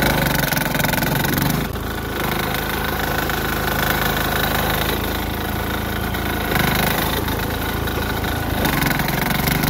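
A Sears Suburban garden tractor's 6 hp single-cylinder diesel engine running steadily, its level dipping briefly about two seconds in.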